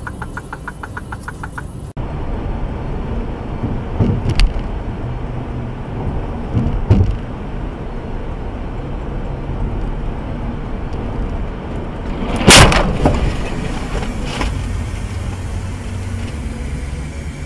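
Steady road and engine noise inside a car at highway speed, as picked up by a dashcam, with two sharp knocks and, later on, one loud bang.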